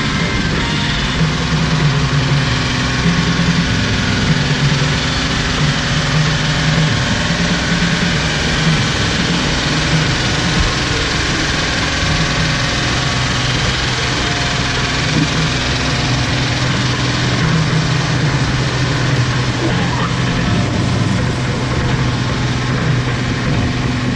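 Farm tractor engine running steadily under load, pulling a weight-transfer sled.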